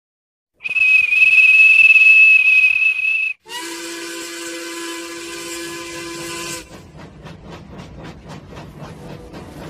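Cartoon steam-train sound effects: a loud, high single-note steam whistle blast with hiss lasting about three seconds, then a lower whistle sounding several notes at once for about three seconds, then the engine's steady rhythmic chuffing as the train gets going.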